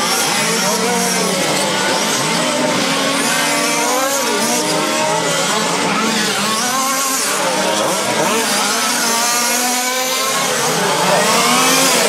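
Several glow-fuel nitro RC car engines running around the track together, their high-pitched whines rising and falling and overlapping as the cars accelerate and brake.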